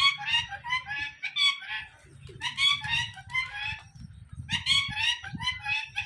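Birds calling in quick runs of short, squawky chirps, pausing briefly about two and four seconds in, over a low rumble.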